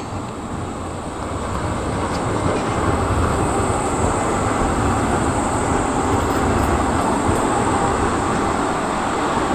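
A Škoda 15T low-floor articulated tram passing close by on curving track: the rolling rumble of its wheels on the rails grows louder over the first couple of seconds, then holds steady as the cars go by.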